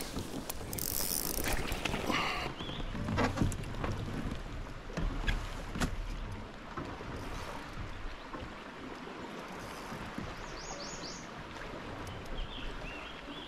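Steady wind and water noise around a fishing kayak, with a few sharp knocks and clicks from handling gear in the first six seconds.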